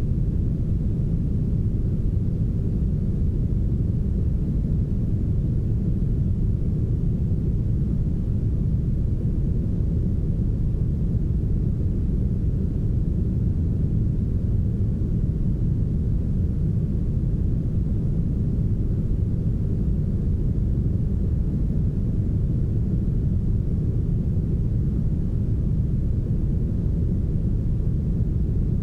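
Steady, heavily smoothed brown noise: an even, deep hiss with the higher frequencies filtered away.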